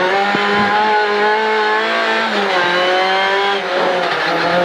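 Rally car engine running under power, heard from inside the cockpit: its pitch holds steady, drops briefly about two seconds in, then climbs again.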